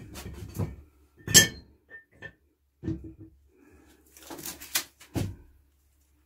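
Irregular knocks and clatters of objects being handled and bumped inside a fibreglass boat hull, the sharpest about a second and a half in and a cluster near the end.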